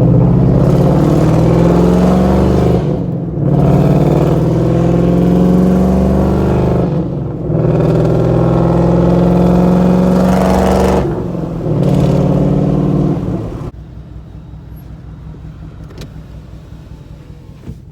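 Straight-piped 5.0-litre V8 accelerating hard through the gears, loud, with a short break at each of three upshifts about every four seconds, then backing off to a much quieter cruise near the end.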